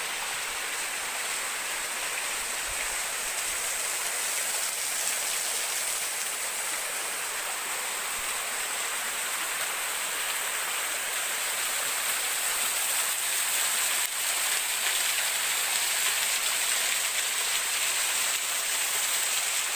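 Steady rush of a river and waterfall, a constant hiss of falling and flowing water that grows a little louder in the second half.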